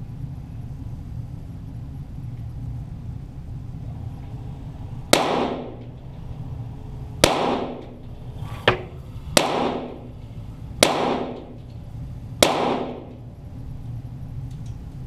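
.22 rimfire Walther GSP target pistols firing: six shots a second or two apart, most with a short echoing tail, one shorter and sharper crack among them.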